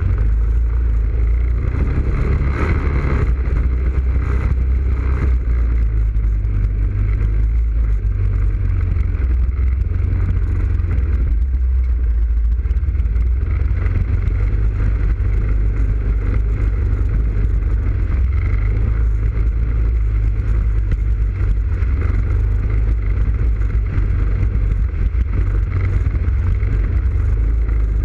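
ATV engine running steadily as the quad rides along a muddy trail, heard from the front rack with a heavy low rumble. A little more clatter and splash about two to four seconds in.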